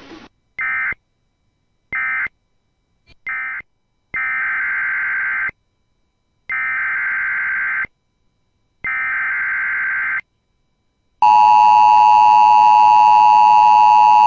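Emergency Alert System SAME data bursts. First come three short end-of-message bursts, then three longer header bursts, each a rapid warbling screech near 2 kHz. About eleven seconds in, a loud, steady EAS attention tone begins.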